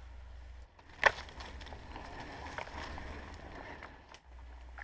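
Branches and leaves rustling and twigs crackling as a person pushes on foot through thick brush, with one sharp crack about a second in.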